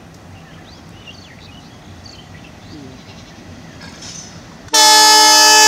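An approaching freight train's diesel locomotive sounds its horn: a loud, steady multi-tone blast that starts suddenly about three-quarters of the way in. Before it, only faint open-air ambience with scattered bird chirps.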